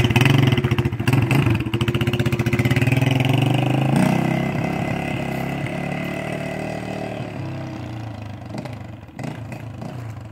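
Kuba Çita 150R motorcycle engine running just after being started on fresh oil, with a short rise in revs about four seconds in, then settling and gradually getting quieter.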